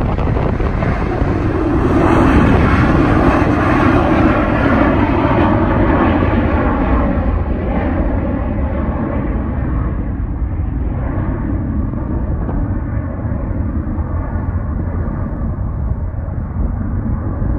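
McDonnell Douglas MD-88 jetliner's rear-mounted Pratt & Whitney JT8D low-bypass turbofans at takeoff thrust. The roar is loudest a few seconds in as the plane lifts off and climbs out, then grows duller and fainter as it climbs away.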